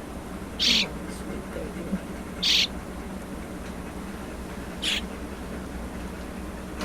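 Baby bird giving three short, raspy, hissing calls, about two seconds apart.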